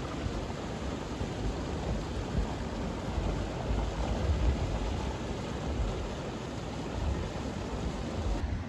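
Steady rushing of flowing creek water at a waterfall, mixed with a gusty low rumble of wind buffeting the microphone.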